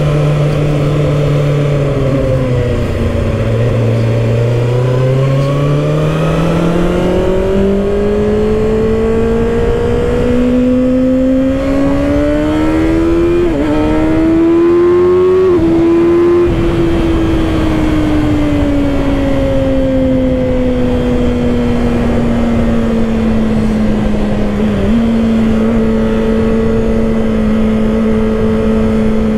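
Kawasaki ZX-6R's 636 cc inline-four engine pulling away from low revs and climbing steadily, shifting up twice in quick succession about halfway through, then easing off and settling into a steady cruise. Wind noise runs underneath.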